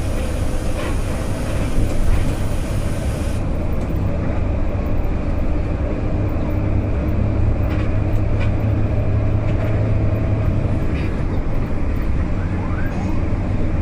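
Steady low rumble of engine and road noise inside a large vehicle cruising on a highway.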